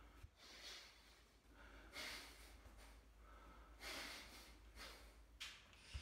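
A man's short, sharp breaths, about four of them a second or two apart, taken in effort as he throws strikes in the air; faint.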